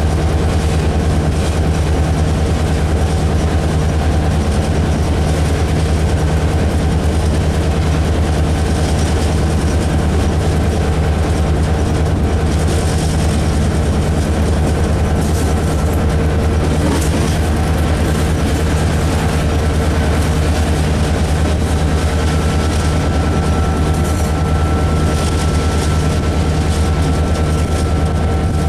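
Diesel locomotive's engine running steadily with a low, even drone, heard from inside its cab with the side window open. A faint thin whine joins in during the later part.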